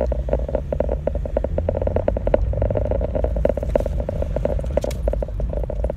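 Road and engine noise inside a moving car, with a dense, irregular run of small clicks and crackles over it.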